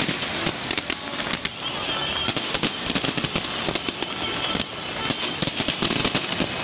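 Aerial fireworks going off close by, a rapid string of sharp bangs and crackles.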